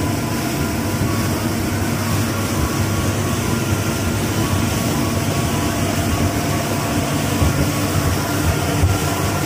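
Motorboat's outboard engine running steadily at cruising speed, a constant drone with a couple of faint steady tones, mixed with rushing wind and water noise.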